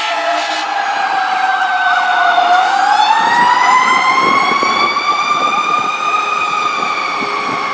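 Siren of a fire department heavy rescue truck responding, a wail whose pitch falls slowly and then climbs again from about two and a half seconds in.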